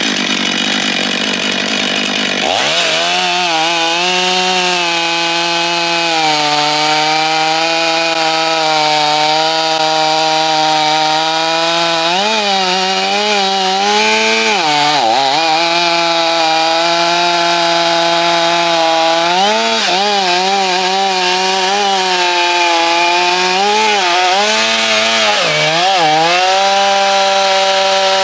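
Stihl MS 500i fuel-injected two-stroke chainsaw at full throttle, cutting deep into a large jarrah hardwood log. After a rough first couple of seconds it settles into a steady high-pitched run, then bogs briefly under load and picks back up several times from about halfway on.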